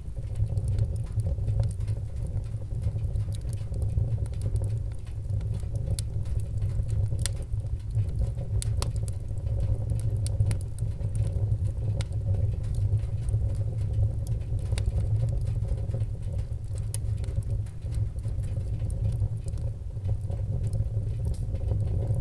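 Fire burning: a steady low rumble with scattered sharp crackles and pops at irregular intervals.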